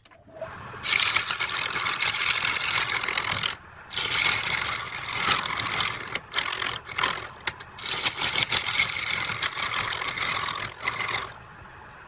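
A turning tool cutting a spinning workpiece on a wood lathe: a rough scraping noise that comes in stretches of a few seconds, broken by short pauses and stopping shortly before the end.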